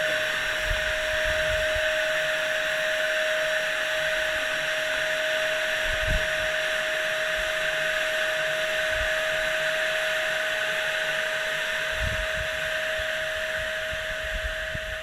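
Electric air pump running steadily with a constant whine, inflating an inflatable air tent.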